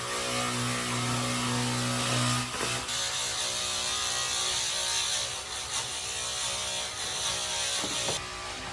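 Electric power tool running with a steady hum, joined about three seconds in by a higher hissing rasp that cuts off suddenly near the end.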